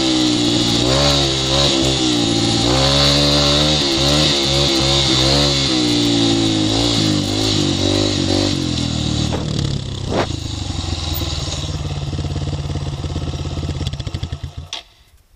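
Dirt bike engine revving up and down as the bike is ridden along a rough trail. Over the last few seconds it settles to a lower, steady running, then cuts out suddenly shortly before the end.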